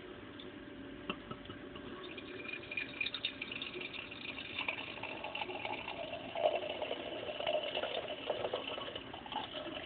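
Lost Abbey Angel's Share Grand Cru beer being poured from a bottle into a glass, gurgling irregularly as the head foams up.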